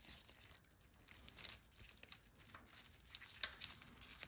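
Faint scattered clicks and scrapes of a 3 mm Allen key turning a small screw out of an e-bike's rear-axle torque arm.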